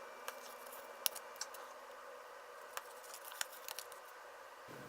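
Faint room hiss with a few scattered light clicks and taps, like small objects being handled on a table.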